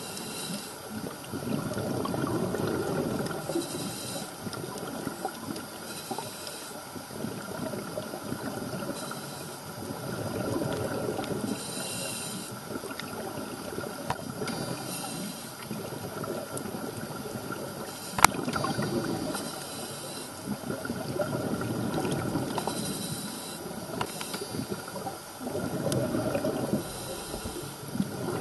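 Scuba diver's regulator breathing underwater: short hissing inhalations alternating every few seconds with longer bubbling exhalations. One sharp click about eighteen seconds in.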